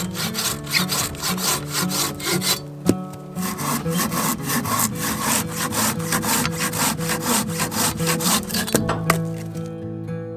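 Silky Sugowaza pull saw cutting through a dead branch: quick, even back-and-forth strokes, about four a second, with a short pause about three seconds in, stopping near the nine-second mark.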